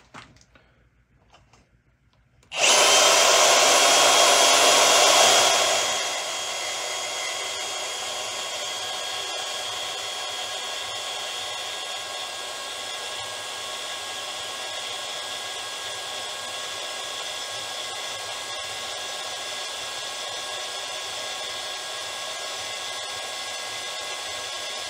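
Milwaukee M18 Fuel Deepcut cordless bandsaw (2729-20) cutting through 1/4-inch-wall steel tube with an 8/10-tooth extreme thick metal blade at its top speed setting. It starts suddenly about two and a half seconds in, loud for the first three seconds, then settles into a steady, quieter whine as the blade works slowly down through the heavy steel.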